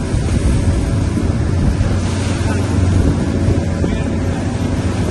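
Boat motor running steadily with a low rumble, wind buffeting the microphone.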